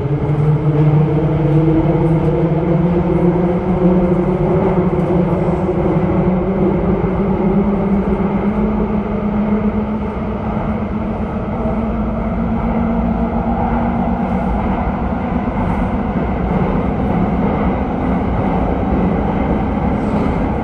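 Copenhagen Metro train running through a tunnel: the electric drive whines, rising in pitch over the first several seconds as the train picks up speed and then holding steady, over the continuous rumble of wheels on the rails.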